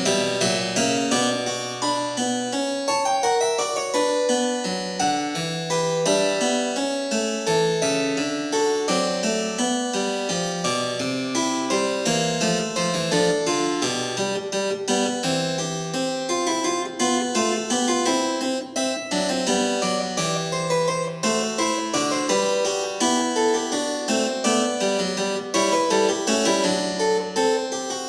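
Background music: a quick, continuous run of plucked keyboard notes with a harpsichord-like sound.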